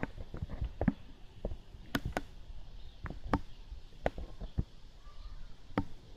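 Irregular sharp clicks and taps, two or three a second, over a faint low background rumble.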